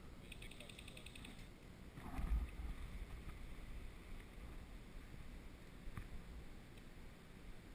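Faint rustling and handling noise from a player shifting position against a woodpile, with a muffled bump about two seconds in. Near the start there is a quick run of faint, evenly spaced ticks lasting about a second.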